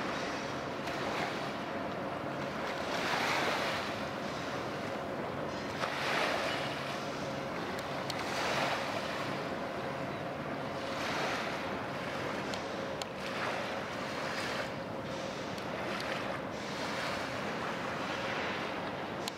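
Small waves lapping and washing at the water's edge, swelling about every two and a half seconds, over a steady low hum of ship machinery with a faint constant tone.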